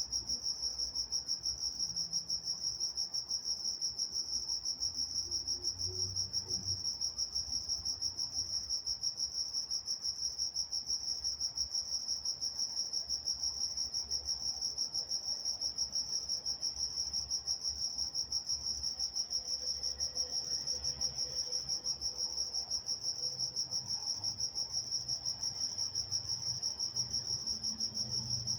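Crickets chirping at night: a steady, high-pitched chorus in a fast, even pulse that never lets up.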